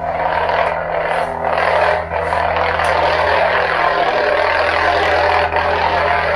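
Neopixel replica lightsaber's sound board playing a custom soundfont: a steady low electric hum, with SmoothSwing swing sounds that swell and fade several times as the blade is moved.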